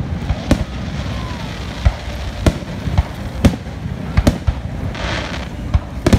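Aerial fireworks shells bursting overhead: about ten sharp bangs at irregular intervals over a steady low rumble, with a brief hiss about five seconds in.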